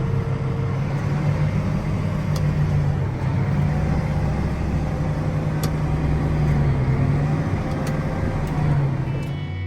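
Farm tractor engine running steadily while driving, a low drone with a few faint clicks.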